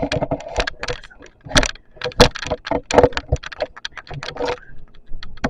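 Quick irregular clicks, taps and rattles of hard plastic pieces being handled and knocked together.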